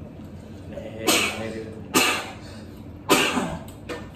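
A man coughing three times, loud sudden coughs about a second apart.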